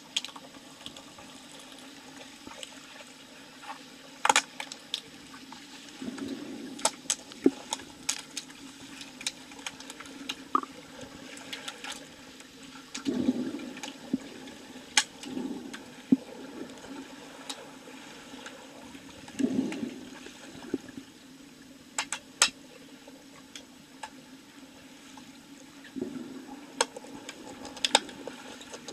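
Underwater hockey heard underwater in a pool: a steady watery rush with swells of bubbles and water churned by swimmers, and sharp clicks and clacks scattered throughout as sticks and the puck strike the tiled pool bottom.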